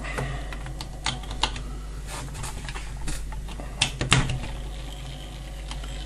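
Irregular clicks and knocks of hands handling a plug, test leads and a washing-machine timer while a mains test cable is plugged in to power the timer motor, over a steady low hum.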